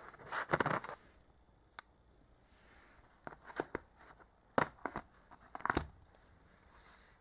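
Packaging of a Blu-ray and DVD combo pack being handled: rustling with several sharp clicks and taps as the set is opened up.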